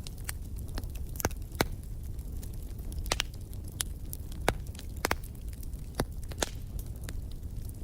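Wood fire crackling: irregular sharp pops and snaps, a few louder than the rest, over a steady low rumble.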